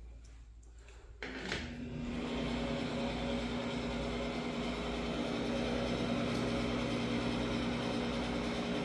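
A switch clicks and a bathroom ceiling exhaust fan starts up, building over about a second, then runs steadily with a low motor hum and a rush of air.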